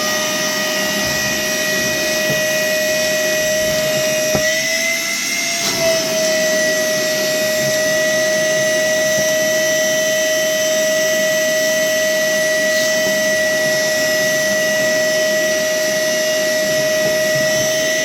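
Worx WX031 cordless brushless wet and dry vacuum running with a steady high whine after spinning up, its pitch rising briefly about five seconds in. Its filter has been loaded with fine sawdust, which the reviewer reckons leaves it completely clogged.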